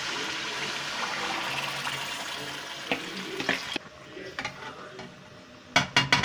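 Yogurt-marinated chicken hitting hot oil in an aluminium karahi, sizzling steadily; the sizzle drops away suddenly nearly four seconds in. Near the end, a quick run of sharp knocks of a spoon against the pan.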